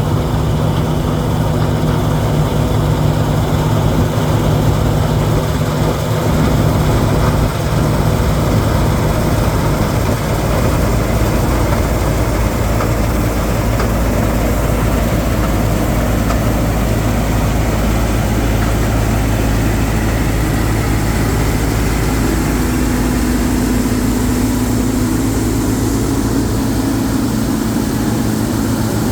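John Deere 2056 combine harvester running steadily under load, its diesel engine and threshing machinery making a constant loud drone.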